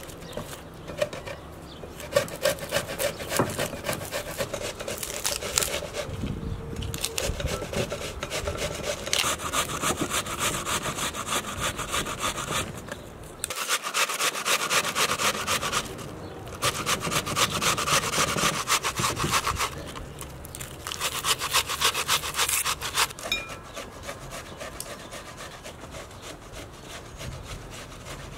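An onion grated on a metal box grater in quick, repeated strokes. The grating comes in runs of a few seconds with short pauses between them and grows quieter near the end.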